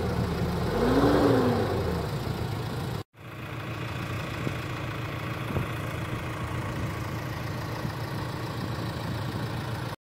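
Diesel engine of a Caterpillar tracked excavator working, revving up and back down about a second in. The sound cuts out abruptly about three seconds in, then the engine runs on steadily at a lower level.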